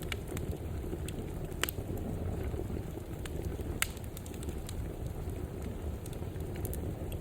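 Wood fire burning in a fireplace: a steady low rumble of flames with scattered sharp crackles and pops, the loudest about one and a half seconds in and again near four seconds.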